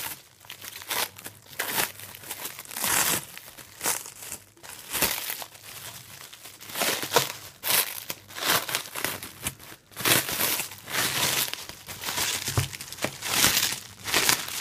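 Plastic cling wrap crinkling and crackling as it is pulled and unwrapped by hand in irregular bursts, now and then stretching and tearing.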